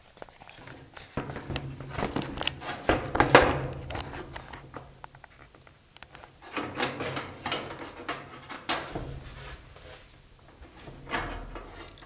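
Handling noise: scattered clicks, knocks and rustles as hands move about the dryer motor and pick up multimeter test probes, the loudest knock about three seconds in, over a low hum that comes and goes.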